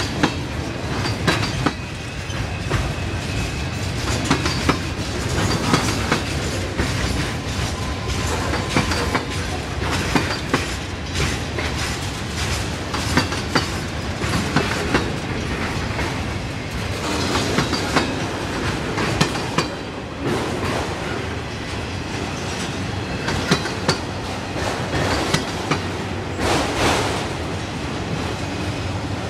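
Freight train of boxcars and autorack cars rolling past close by: a steady rumble with a constant, irregular clatter of steel wheels clicking over rail joints.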